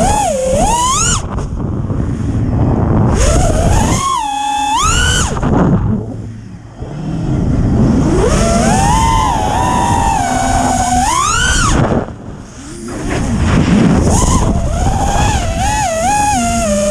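Brushless motors and T-Motor 5138 propellers of a 6S FPV quadcopter whining, the pitch sweeping up and down with the throttle. Twice, about six and twelve seconds in, the whine drops away as the throttle is cut, then climbs back.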